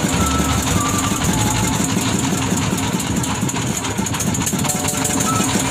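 Small wooden fishing boat's engine running steadily with a rapid low beat.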